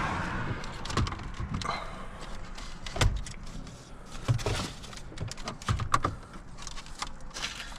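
Hands working car interior dash trim around the steering column: scattered plastic clicks and knocks with short rustling scrapes.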